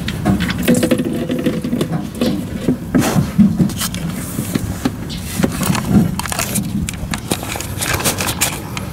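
Irregular clicks, knocks and scrapes of hand work under a car: a wrench on the manual transmission's drain plug and a plastic oil drain pan being handled beneath it.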